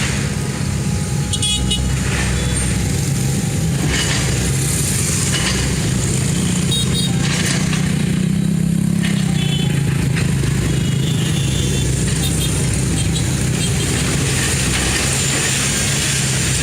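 A heavy machine's engine running steadily, revving up briefly about halfway through, with scattered clanks and clatter over it.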